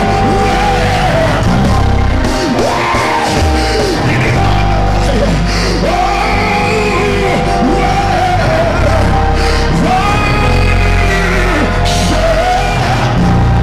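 Live gospel band of keyboards, organ, drums and bass guitar playing loudly, with a voice singing and shouting over it in sliding ad-libs.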